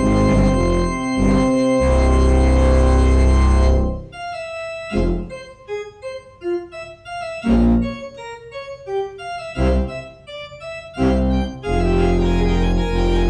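Organ music: full sustained chords over deep bass, giving way about four seconds in to a quieter passage of single melody notes broken by short low chords, before full chords return near the end.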